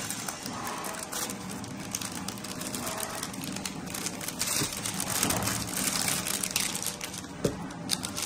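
Packaging crinkling and rustling as it is handled and unwrapped, with scattered small clicks and taps.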